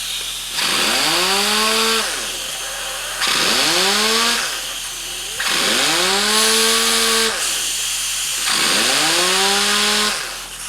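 Pneumatic orbital sander run in four short trigger bursts. Each time the motor's whine rises as it spins up, then sags before it stops, over a constant hiss of air. It runs smoothly without its nasty squeak, freshly flushed of dust with carburettor cleaner, and a little below full speed because the compressor is off and only tank pressure feeds it.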